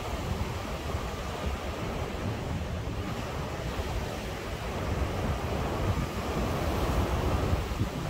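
Ocean surf washing ashore on a breezy night, with gusty wind buffeting the microphone as a flickering low rumble. The surf swells louder about five seconds in.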